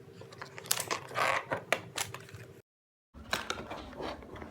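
GoPro packaging being handled: scattered sharp clicks and short rustles of cardboard and plastic. The sound drops out to dead silence for about half a second a little past halfway, at a cut in the recording.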